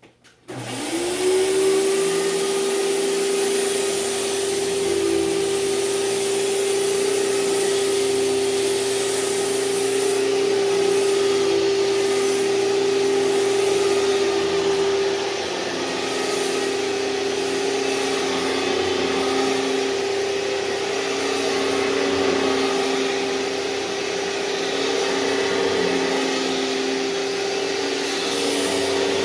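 2003 Hoover TurboPower 5000 canister vacuum switching on about half a second in. Its motor whine rises quickly to a steady high pitch, then runs steadily and loud with a rushing hiss of air. It turns a little quieter about halfway through.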